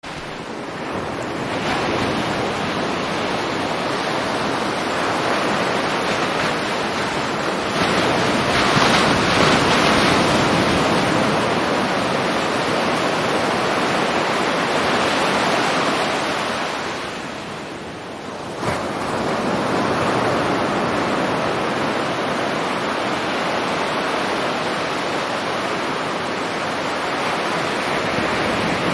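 Ocean waves: a steady rush of surf that swells and eases. It fades out briefly about two-thirds of the way through and comes back with a small click.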